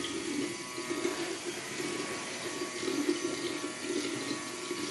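Electric facial cleansing brush humming as it scrubs lathered, wet skin, its hum wavering as it is moved over the face, over a watery hiss.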